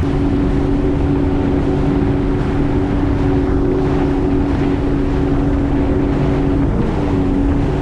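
Sea-Doo GTX 170 personal watercraft running at steady cruising speed: its Rotax three-cylinder engine and jet pump give an even two-note drone over rushing wind and water. The drone briefly wavers about seven seconds in.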